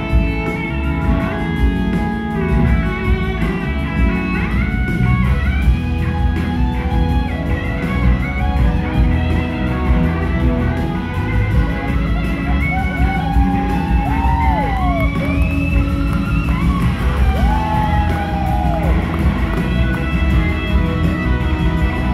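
Live rock band playing, led by an electric slide guitar whose notes glide up and down over two drum kits.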